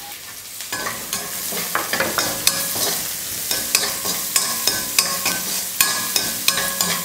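Metal spatula stirring sliced onions, chopped garlic and green chillies frying in oil in a stainless steel kadai: frequent clicks and scrapes of the spatula on the steel pan over a light sizzle, starting about a second in.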